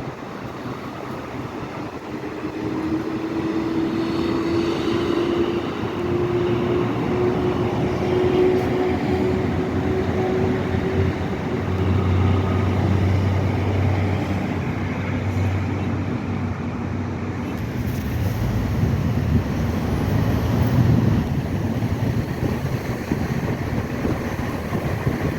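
Motor vehicle running with road noise; its engine tone rises slowly for several seconds, then settles into a lower hum.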